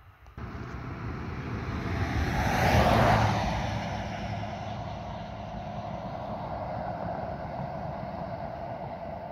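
A road vehicle passing by on asphalt, its tyre and engine noise swelling to its loudest about three seconds in, then fading as it drives away.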